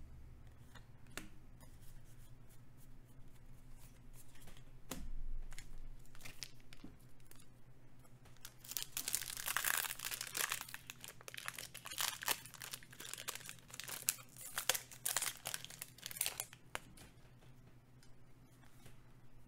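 A few light clicks, then, starting about halfway through, some eight seconds of loud crinkling and tearing as the foil wrapper of a Magic: The Gathering booster pack is ripped open.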